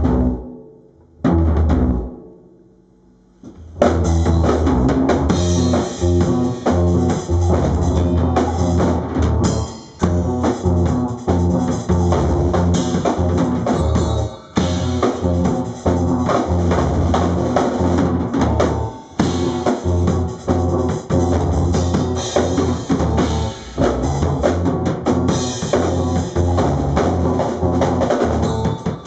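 Live band playing, drum kit and guitar through an amplifier. The music drops out just after the start, a single hit sounds about a second in, and the band crashes back in about four seconds in and plays on.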